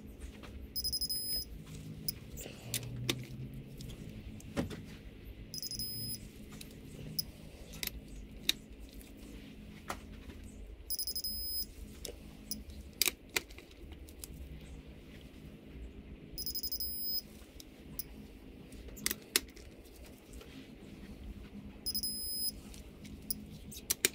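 Digital torque wrench beeping five times, about five and a half seconds apart, each beep a short high-pitched tone, as cylinder-head bolts are turned through a 90-degree angle pass; the beep signals the target angle reached. Sharp ratchet clicks and metal taps sound between the beeps.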